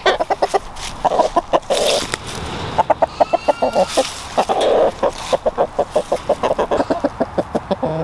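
Several roosters clucking in quick runs of short clucks, many a second, with a few longer, fuller calls between them.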